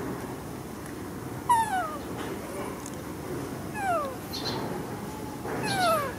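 An animal's short, high calls, each falling in pitch, three times about two seconds apart.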